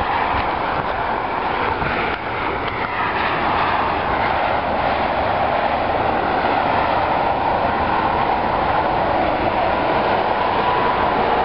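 Steady rushing noise of vehicles passing on the road below, holding at one level throughout.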